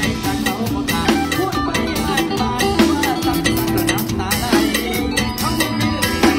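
Live mor lam band music, with a drum kit keeping a steady, driving beat under pitched instruments.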